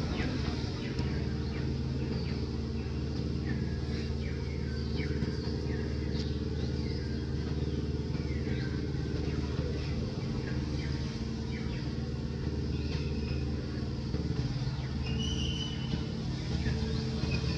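A motor engine running steadily at an even low hum, with short faint high chirps scattered over it.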